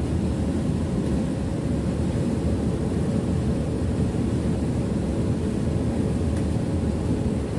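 Mercedes-Benz bus driving at steady speed, with its engine and tyre-on-road noise making a constant deep hum inside the driver's cab.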